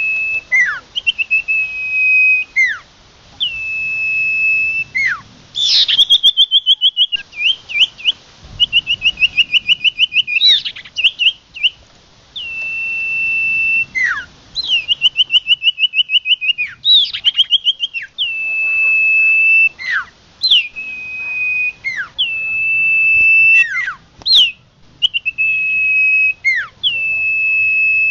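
Common iora (cipoh) song from a bird-lure recording: loud, long level whistles, each ending in a sharp downward sweep, alternating with fast rattling trills of about ten notes a second.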